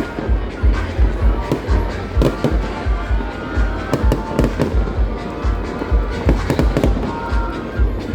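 Fireworks display going off in a dense barrage of booming shell bursts, several a second, with sharp crackling reports, over music and voices.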